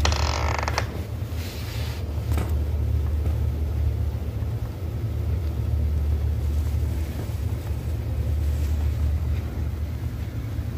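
Steady low rumble of wind buffeting the phone's microphone while snow falls, with a brief sharp noise at the start and another about two seconds in.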